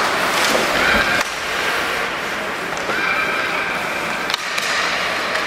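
Ice hockey skates scraping and gliding on the ice, with a few sharp knocks.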